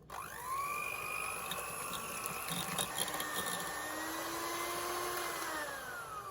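Electric hand mixer running in a bowl of cream, its motor whine rising as it spins up at the start, holding steady, then falling away as it winds down near the end.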